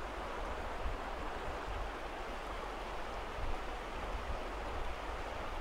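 River water rushing steadily, with a low rumble underneath.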